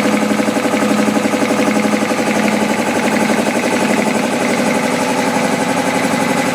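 3 HP piston air compressor running steadily, with a rapid, even pulsing from its pistons.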